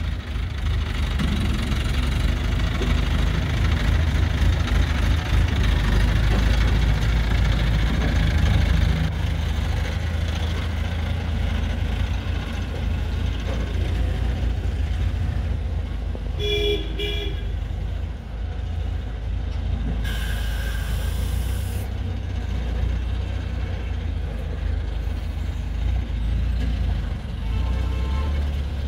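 Diesel engines of a Swaraj 735 FE tractor stuck in mud and an ACE 12XW hydra crane, running with a steady low rumble. A short double horn toot sounds about halfway through, and a few seconds later a hiss lasts about two seconds.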